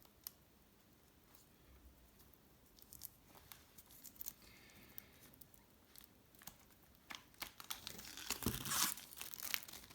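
Plastic shrink-wrap being cut and torn off a boxed album set: faint crinkling with small scattered clicks, sparse at first and busier and louder over the last few seconds.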